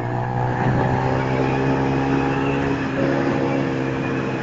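Yamaha Fazer 150's single-cylinder four-stroke engine running through a Roncar aftermarket sport exhaust while the bike rides along, its note holding fairly steady with only slight changes in pitch.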